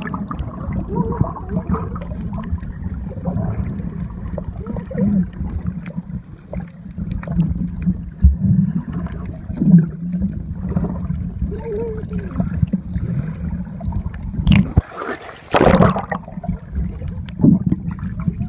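Muffled underwater bubbling and gurgling picked up by a submerged camera, with swimmers' air bubbles churning around the lens. A brief, louder burst of water noise about fifteen seconds in.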